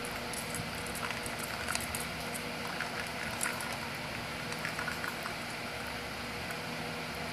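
A cat licking its fur: scattered small wet clicks and smacks, thinning out after about five seconds, over a steady low electrical hum.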